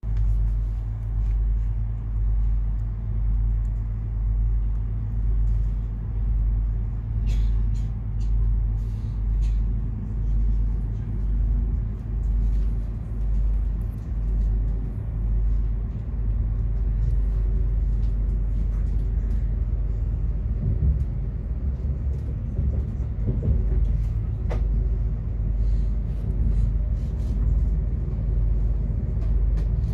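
Interior noise of an ES2G 'Lastochka' (Siemens Desiro RUS) electric multiple unit in motion: a steady low rumble inside the passenger car, with scattered faint clicks. The rumble turns rougher and more uneven about two-thirds of the way through.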